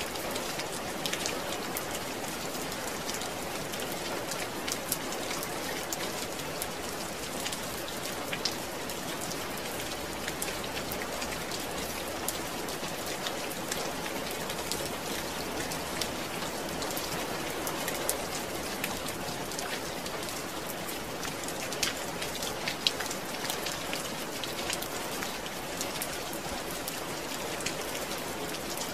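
Steady rain falling, an even hiss with scattered sharper drops pattering on a surface.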